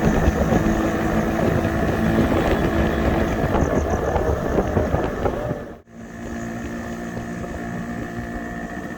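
Engine running steadily under rough wind buffeting on the microphone, cut off abruptly about six seconds in, then resuming a little quieter.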